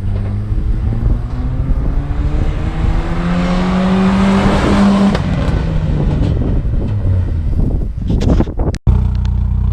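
S10 pickup's engine through its freshly welded-in Cherry Bomb muffler, accelerating hard with a steadily rising pitch, dropping at a gear change about five seconds in, then pulling again. Near the end it cuts off abruptly and gives way to a steadier engine hum.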